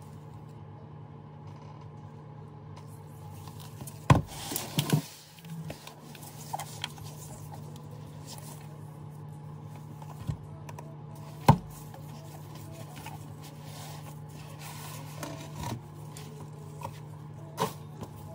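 Cardboard product box handled by gloved hands: a few sharp knocks and taps as it is turned, set down and opened, the loudest about four and eleven seconds in, with soft rubbing and paper rustle between. A steady low hum runs underneath.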